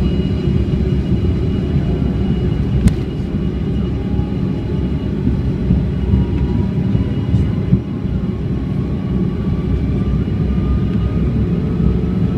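Cabin noise inside a Bombardier CRJ200 regional jet taxiing: a steady low rumble from its rear-mounted General Electric CF34 turbofans and the rolling, with a faint engine whine above it that rises slowly in the second half. A single sharp click about three seconds in.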